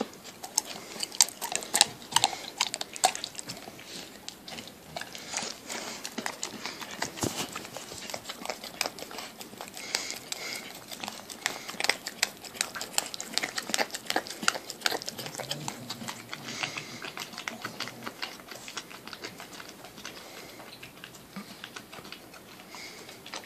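A dog licking and smacking its mouth on sticky peanut butter: a long run of wet clicks and smacks, busiest in the first few seconds and again around the middle.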